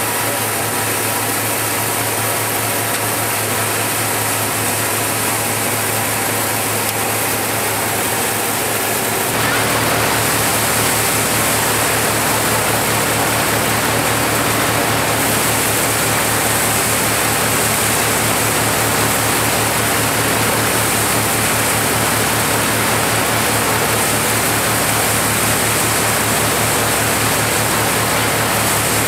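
Multicrop thresher running steadily, threshing maize cobs as they are pushed in from the feed tray: a dense, even mechanical noise over a steady low hum. About nine seconds in it gets a little louder.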